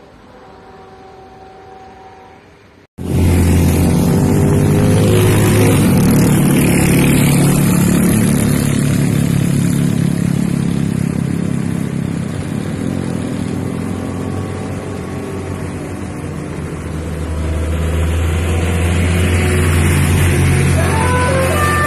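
A bus's engine running loud as the bus passes close by, with a rush of tyre and wind noise, starting abruptly about three seconds in. Near the end a multi-tone telolet musical horn begins to play its stepped notes.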